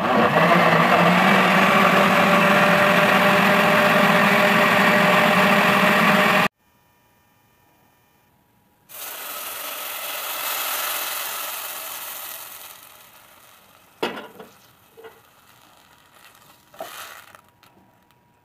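Countertop blender running steadily for about six seconds as it purées tomato, onion and garlic with water, then stopping abruptly. After a short pause, the purée is poured into a steel pot of noodles fried in oil, with a sizzling hiss that fades, followed by a few knocks of a plastic spoon against the pot while stirring.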